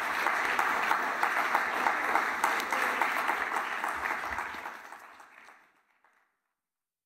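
Audience applauding, a dense patter of many hands clapping that fades away about five seconds in.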